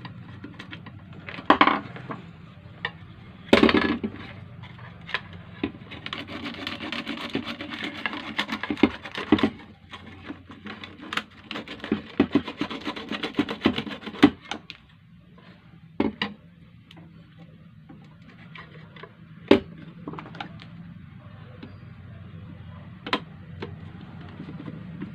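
Sewing machine foot pedal being worked on by hand: sharp clicks and knocks of small parts and tools, with a stretch of rubbing and scraping in the middle, as its contact strip is checked for carbon and spark burn.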